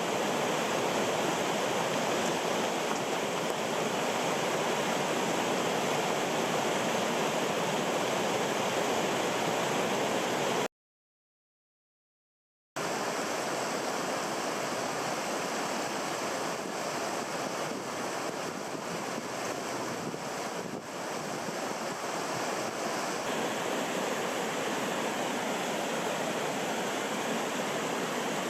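Mountain stream water rushing steadily. About eleven seconds in, the sound cuts out to total silence for about two seconds, then the rushing resumes.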